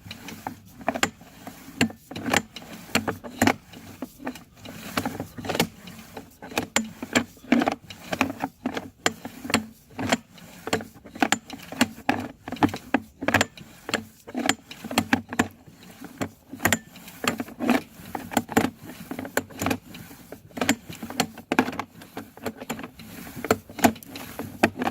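Sewer inspection camera and its push cable being pulled back through the pipe: irregular clicking and knocking throughout, over a low steady hum.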